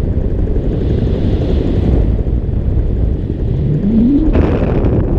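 Paramotor in flight: steady heavy wind rumble on the camera microphone, with the engine revving up near the end, a rising whine followed by a fuller, louder running sound.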